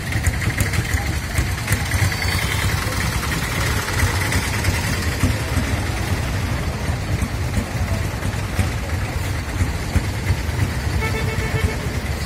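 Busy market ambience dominated by a steady low engine rumble from a running vehicle, with a faint murmur of voices.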